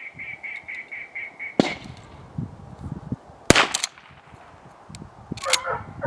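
Gunshots fired as retrieving marks are thrown: a sharp report about a second and a half in and a louder one about three and a half seconds in. Near the end a dog starts whining in short repeated calls.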